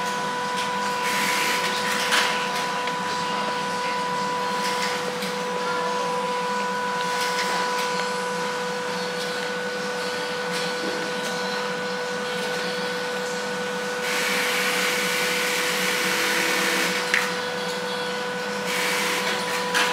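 Steady factory machine noise: a constant hum with a thin whine over a rushing hiss. The hiss swells for a few seconds about fourteen seconds in, and there are a couple of light knocks.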